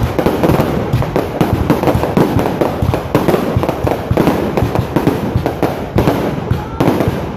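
Fireworks going off in a dense, continuous barrage: many rapid bangs and cracks overlapping with no pause between them.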